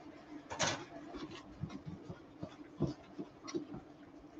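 Kitchen scissors snipping spring onions into a frying pan: a run of short, sharp snips at uneven intervals, the loudest about half a second and nearly three seconds in, over a steady low hum.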